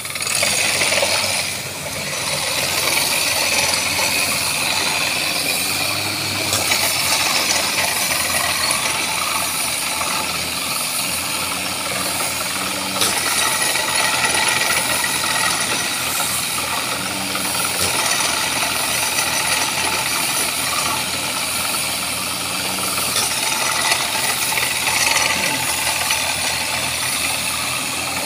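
Borewell drilling rig running steadily while drilling, its engine and drill head making a continuous mechanical noise with a strong hiss, as muddy water and cuttings flush out of the bore.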